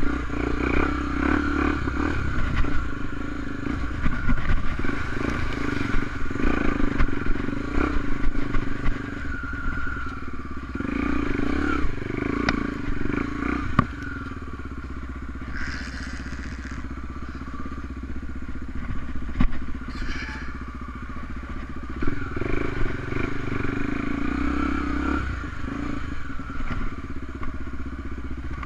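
Honda XR250 Tornado enduro motorcycle's single-cylinder four-stroke engine running while ridden off-road, its revs rising and falling with the throttle. A few sharp knocks and some clatter come through about halfway in.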